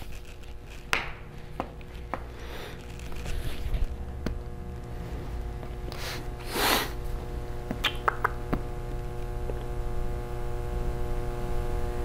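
A steady low hum with faint steady higher tones over it, broken by a few light clicks and a short rustle of handling about six and a half seconds in.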